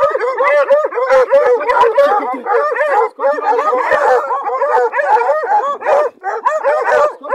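Pack of hunting dogs yelping and barking in a rapid, unbroken stream of short calls.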